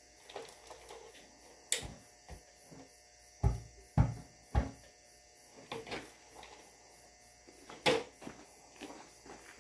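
Irregular metal knocks, taps and clinks of hand tools working at a stuck oil pan on a tractor engine, prying and tapping to break it loose. The sharpest knocks come about two seconds in and near the end.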